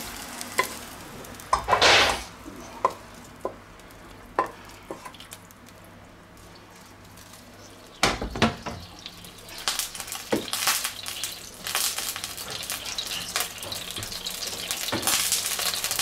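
Kitchen utensils clinking and scraping as fried chicken strips are scooped out of a nonstick wok into a metal bowl, with the loudest clatter about two seconds in. About halfway through, the wok knocks down onto the ceramic hob, and the leftover oil in it starts sizzling again, growing louder toward the end.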